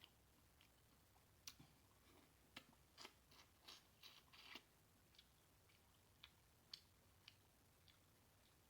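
Faint wet mouth smacks and chewing from someone eating seafood boil: a string of short sharp clicks, bunching into a quick run about three to four and a half seconds in.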